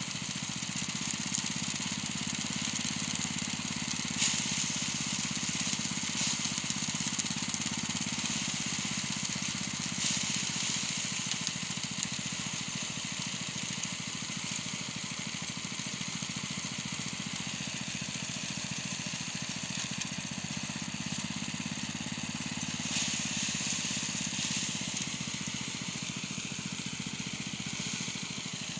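A small engine-driven machine running steadily, with louder rushing hiss swelling briefly about four, ten and twenty-three seconds in.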